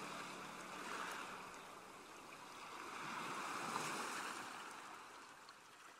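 Surf-like rushing wash of ocean waves, swelling twice and fading away.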